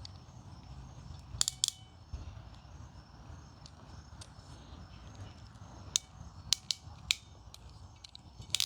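Sharp clicks of a ratcheting RG58-class coax crimp tool crimping the ferrule over the shield of RG400 coax at a PL-259 connector: a quick pair about a second and a half in, then scattered single clicks from about six seconds on.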